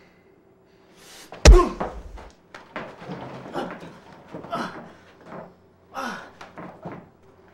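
A loud blow landing on a man, a single thud about one and a half seconds in, followed by the struck man gasping and groaning in short bursts.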